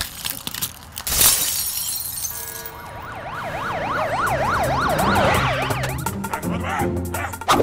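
Cartoon glass-shatter sound effect about a second in, then a wailing alarm siren going quickly up and down, about three times a second, for a few seconds: the alarm of the broken shop window going off. Background music runs underneath.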